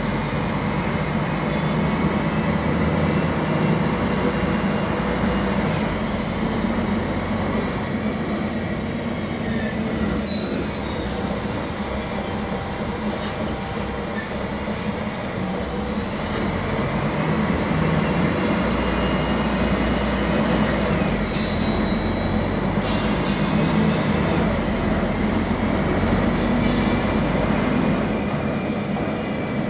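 Mercedes-Benz OM-457 LA straight-six turbodiesel and Voith DIWA automatic gearbox of an articulated city bus running under way, heard from inside the cabin. The engine pulls harder, eases off in the middle and pulls again, with a high whine that rises and falls in pitch.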